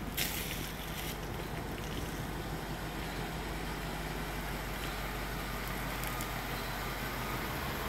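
Ford F700 fire truck's engine idling steadily, with a brief sharp click about a quarter second in.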